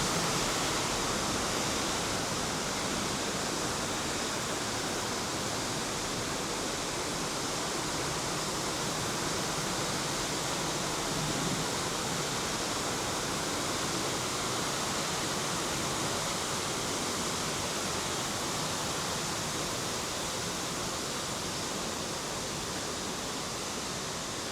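Steady rush of flowing river water running through a rocky gorge.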